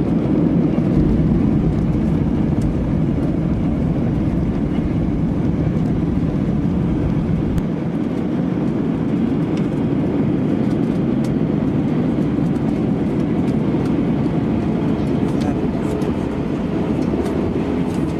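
Steady cabin noise inside an Airbus A319 around landing: a continuous rumble of engines and airflow, with small scattered rattles. The deepest part of the rumble drops away about eight seconds in.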